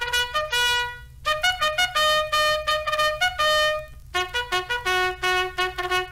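Outro music: a solo trumpet playing a brisk tune of quick short notes and a few longer held ones, with a brief pause about four seconds in.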